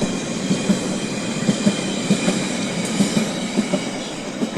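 London Underground Central line 1992 stock tube train running on the rails: a steady loud rumbling rush with irregular clicks of the wheels over the track.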